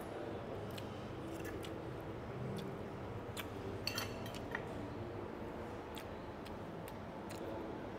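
Cutlery and dishes clicking and clinking now and then during a meal, with a small cluster of clinks about halfway through, over a steady low background hum.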